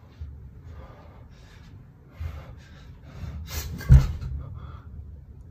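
Metal pipe swung in kendo-style practice swings: a string of short, breathy rushes of air, then a sharp knock about four seconds in, the loudest sound.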